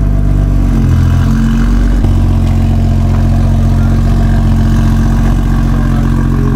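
BMW M340i's B58 turbocharged straight-six idling through a newly fitted Active Autowerke exhaust: a steady, deep, round note rather than a raspy one. The note shifts briefly about a second in, then settles again.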